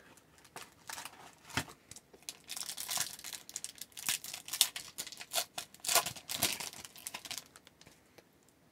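Foil trading-card pack wrapper from a 2002-03 Topps hockey box crinkling and tearing as it is ripped open by hand: a run of sharp crackles that dies away near the end.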